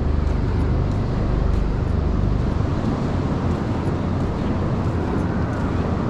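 Steady wash of ocean surf breaking along a sandy beach, with wind rumbling low on the microphone that eases about halfway through.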